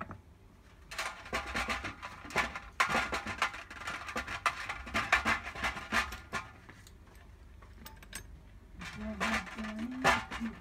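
Small metal turbocharger parts and hand tools clinking and scraping against each other in a stainless-steel tray, a dense run of rattling clicks from about a second in to about six seconds, then scattered clinks.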